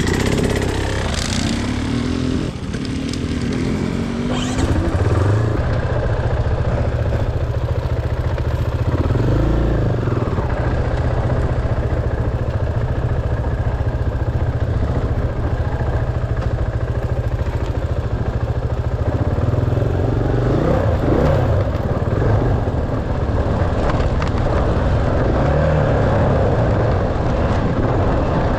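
Dirt bike engine running under riding load, its pitch rising and falling as the throttle opens and closes, over a constant low rumble.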